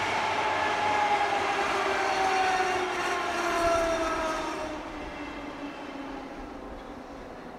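Berlin S-Bahn class 480 electric train running past and away, its drive whining in several tones that slowly fall in pitch over the rumble of wheels on rails. The sound fades from about four and a half seconds in.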